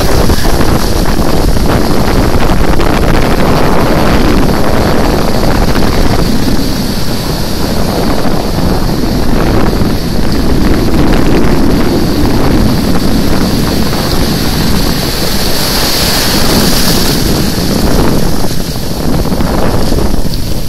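Ocean surf breaking and washing through shallow water, with heavy wind buffeting the microphone.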